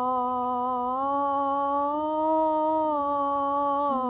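A single voice holding a sung 'oh' vowel on one steady tone. It glides up a small step twice, then back down to the starting note near the end.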